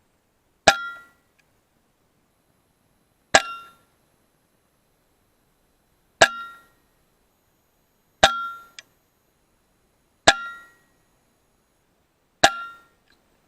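FX Maverick PCP air rifle firing, six separate shots about two to three seconds apart, each a sharp crack with a brief metallic ring.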